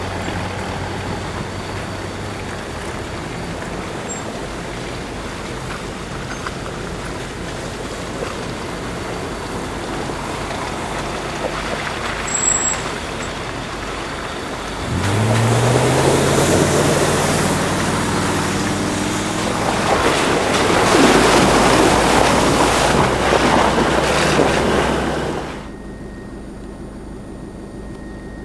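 Off-road SUV engines driving through mud and snow, first as a steady hum. About halfway an engine revs up, rising in pitch, under a loud rushing of tyres and wind for several seconds. Near the end this cuts off abruptly to a quieter, steady engine hum.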